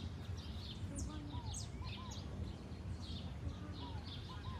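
Several birds chirping and calling together: many short high chirps, with a pair of lower arched whistled notes repeating every couple of seconds, over a steady low rumble.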